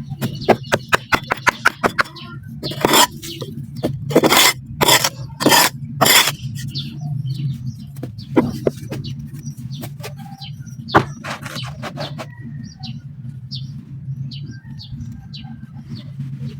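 Dry sand clumps being crushed and crumbled: a run of gritty crunches and crackles, densest and loudest in the first six seconds, then sparser clicks over a steady low hum.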